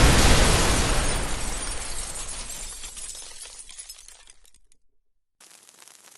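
Explosion sound effect dying away: a deep rumble with shattering, crackling debris that fades over about four and a half seconds into silence. Near the end a faint rustle begins as the next blast starts up.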